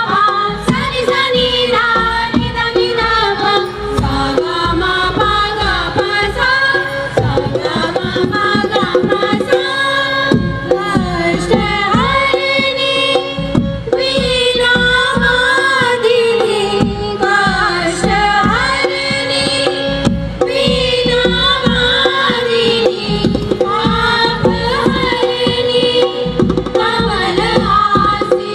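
Music: a song with a singing voice over steady drum percussion, loud throughout.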